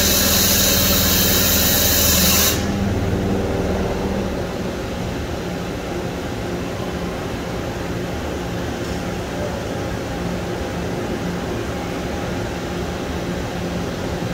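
Toshiba BP-150 R22 CNC horizontal boring mill running under power. A loud hiss cuts off suddenly about two and a half seconds in. After that the machine's drives keep up a steady hum while the table and spindle head move.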